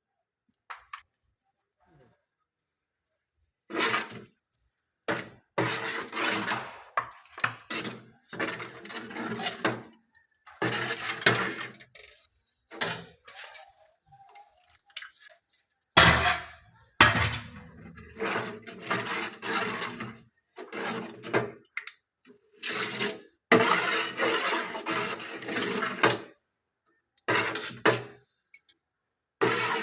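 Dough for chitoi pitha being worked by hand in a metal pan: repeated bursts of scraping and clattering against the pan, with short pauses between them. A sharp knock about halfway through is the loudest sound.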